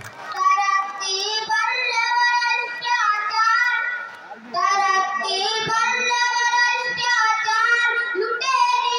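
A boy singing a poem unaccompanied, in long held notes that waver, with a short breath pause a little after four seconds.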